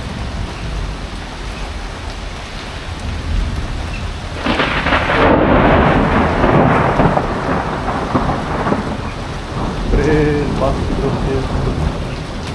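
Steady heavy rain with a low rumble, then a thunderclap about four and a half seconds in: a sudden crackling crash that rolls on for several seconds and fades.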